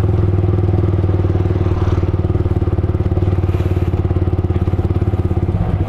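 Motorcycle engine running steadily at a constant speed while being ridden, with a fast, even pulse and no change in pitch.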